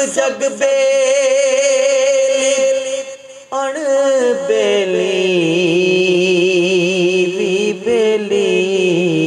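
Man singing Punjabi Sufi arifana kalam, drawing out long held notes with a wavering vibrato and no words. The first note breaks off after about three seconds, and the next is drawn out lower.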